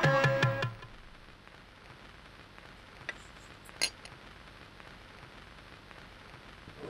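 Background music dies away within the first second, leaving low room tone with a few faint, sharp clinks about three and four seconds in.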